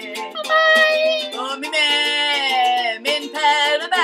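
A woman singing a Danish song in long held notes, with a ukulele strummed along.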